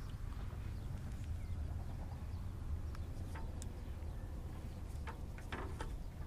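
Steady low rumble, with a few faint, short clicks and knocks as plastic hose fittings are pushed onto a small 12 V pump and the pump is handled.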